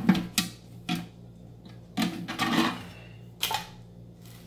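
Metal knocks and a scraping clatter from handling the removable shelf and loose parts of a steel pistol safe. There are a few sharp knocks near the start, a longer scraping rattle about two seconds in, and one more knock after three seconds.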